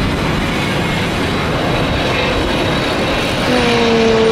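Jet airliner engines roaring on a landing approach: a loud, steady rushing noise. About three and a half seconds in, a steady held tone joins it.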